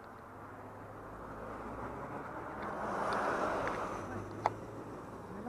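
A van passing close alongside a bicycle: its engine and tyre noise swell to a peak about three seconds in and then ease off. A single sharp click comes about four and a half seconds in.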